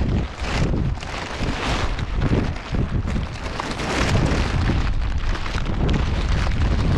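Wind buffeting the microphone: a loud, uneven rumble that surges up and down, with a hiss of rushing air over it.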